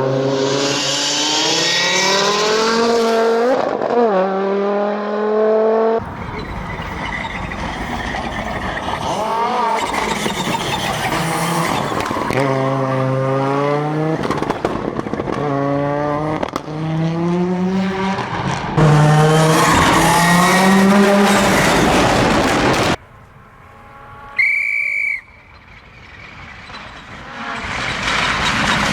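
Audi Quattro S1 rally car's turbocharged five-cylinder engine revving hard and changing gear, its pitch climbing and dropping with each shift. The sound cuts between passes, with a brief quieter stretch about three-quarters of the way through.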